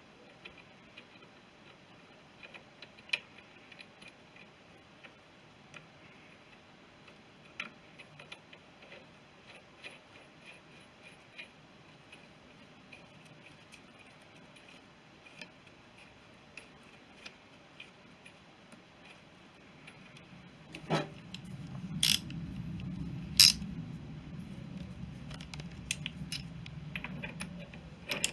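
Ratchet wrench clicking as a thread-locked nut on the BSA B31's primary drive is run down, starting about two-thirds of the way in with a louder rattle and a few sharp clicks. Before that only faint, scattered ticks.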